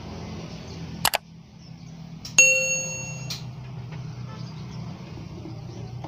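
Subscribe-button animation sound effect: a quick double click about a second in, then a bright bell ding that rings for under a second and cuts off abruptly, over a steady low hum.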